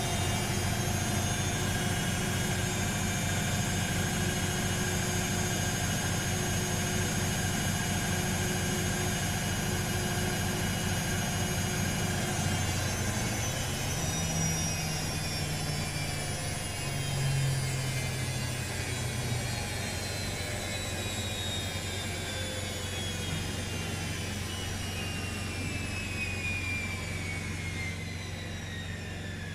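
An Ayerbe 208 cc petrol generator runs steadily under the load of a washing machine in its 800 rpm spin. The engine note shifts slightly partway through. Over it, the spinning washer gives a high whine that slowly falls in pitch through the second half.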